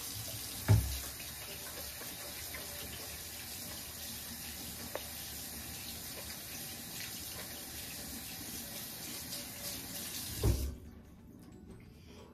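Kitchen sink tap running steadily while hands are washed under it, for about ten seconds, then turned off. A knock sounds about a second in and another just before the water stops.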